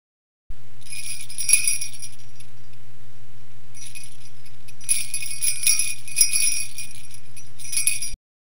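Metallic jingling in about five shaken bursts over a steady low hum. It starts and stops abruptly.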